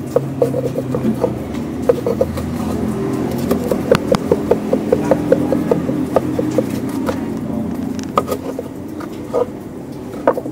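Wide metal spatula blade cutting down through a thick terang bulan pancake and tapping on the pan, a quick series of light clicks, several a second through the middle, over steady street background noise.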